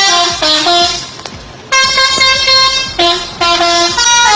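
Indonesian 'telolet' bus horn, a multi-tone musical air horn, playing a quick run of short stepping notes. After a break of under a second it holds one long note, then plays more short notes.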